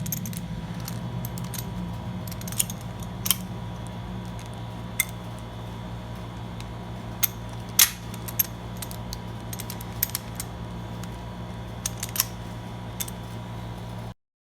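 Scattered sharp metallic clicks and clinks of a padlock and its keys being handled, the loudest about 8 seconds in, over a steady electrical hum. The sound cuts off abruptly near the end.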